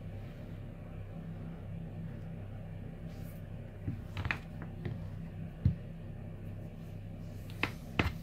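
Converse canvas sneakers stepping and scuffing on a tile floor: a few short taps and scuffs from about four seconds in, the loudest a little past the middle, over a steady low hum.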